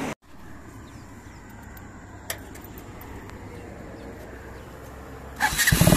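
A quiet low rumble with one light tick about two seconds in, then near the end a custom Modenas Jaguh chopper motorcycle's engine suddenly comes in loud and keeps running.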